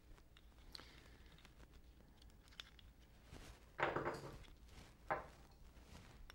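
Metal parts of a lathe chuck being handled as its jaws are unscrewed and taken off: faint scattered clicks, then two louder short clatters about four and five seconds in.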